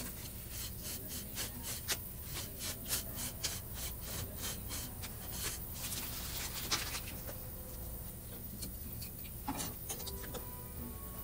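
A knife blade scraping excess cured investment off the top of a ring-casting flask, in quick strokes about three a second for the first half. The strokes then thin to a few scattered scrapes and knocks as the rubber base is worked off the flask.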